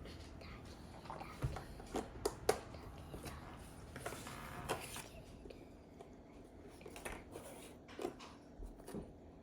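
Cardboard jigsaw puzzle pieces being handled and set down on a table: scattered small clicks and taps, with a brief rustle of pieces being moved about halfway through.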